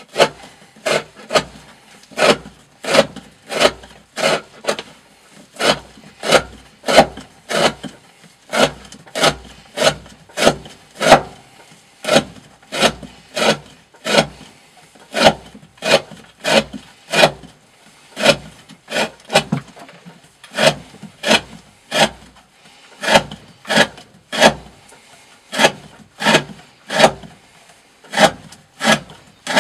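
Knife blade slicing through thick rope over and over, one cut about every two-thirds of a second in a steady rhythm. It is the D2 steel edge of a Green Thorn Hati knife being worn down in a repeated rope-cutting test.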